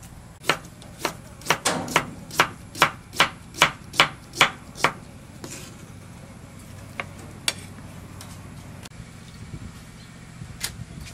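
Kitchen knife slicing a cucumber on a wooden cutting board: a run of about a dozen crisp chops, roughly two to three a second, that stops about five seconds in, followed by a few single knocks.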